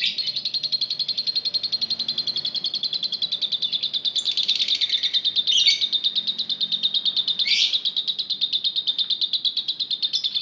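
Fischer's lovebird 'ngekek': a long, unbroken chattering trill of rapid, even pulses. A couple of sharper calls cut in past the middle.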